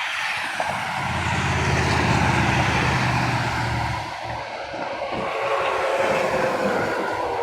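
Heavy road vehicle passing in traffic: a low engine drone comes in about a second in and fades near the fourth second, over a steady hiss of traffic noise.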